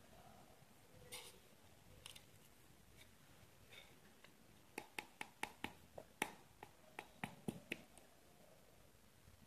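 Soft scraping of a plastic scoop in whey protein powder, then about a dozen sharp clicks in quick succession, roughly four a second, as the scoop knocks against the plastic tub.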